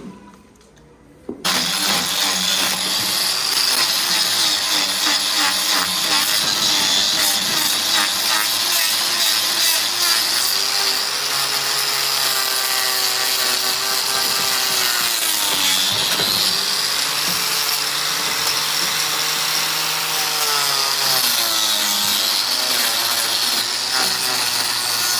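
A power tool starts abruptly and runs loudly and continuously, its pitch sagging and recovering several times as it is loaded.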